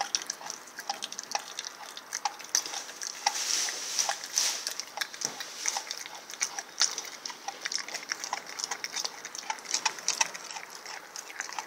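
Rottweiler eating a large raw chunk of veal: wet, irregular chewing and smacking of the jaws on the meat.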